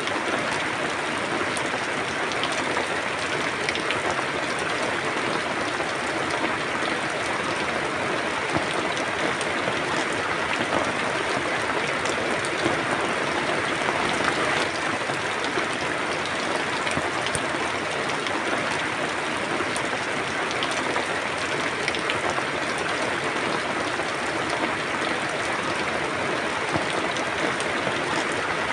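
Steady rain falling, an even hiss with scattered drop ticks that holds level throughout.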